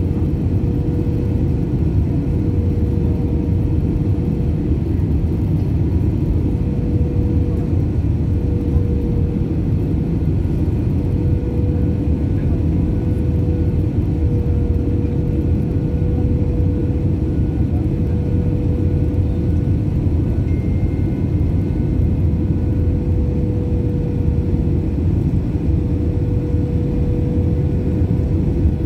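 Jet airliner cabin noise on the descent to landing: a steady roar of engines and airflow over the fuselage with a steady mid-pitched tone running through it.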